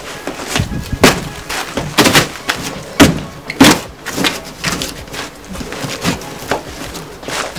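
Cardboard of a large bicycle shipping box being pulled apart and folded back by hand: irregular scraping, flapping and sharp knocks, loudest about a second in and again around three seconds in.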